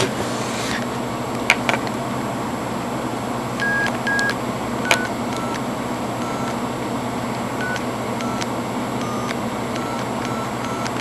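Handheld ham radio transceiver's keypad sending about a dozen short DTMF touch-tones, one per key press and of slightly different pitches, over a steady hiss, with a few sharp clicks. The tones are dialing a Skype call through a radio-to-Skype link.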